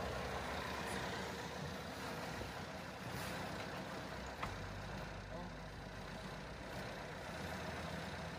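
Yacht's inboard engine running steadily under way, a low even hum under wind and water noise, with one small click about four and a half seconds in.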